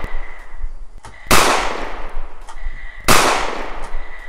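Two gunshot sound effects about two seconds apart, each a loud sudden crack that fades away slowly, with a few smaller clicks between them.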